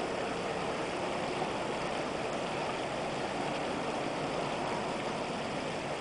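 Shallow creek water rushing steadily over a rippled stretch of stream, an even, unchanging rush.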